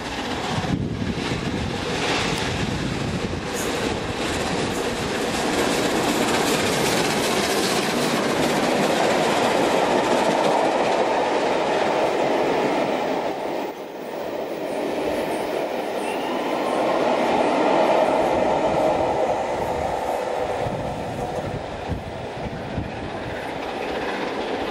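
Steam locomotive 60163 Tornado, a three-cylinder LNER Peppercorn A1 Pacific, running through a station at speed with a train of empty coaches. It passes close by and rolls away, a loud sustained rush of train noise that dips briefly about halfway through.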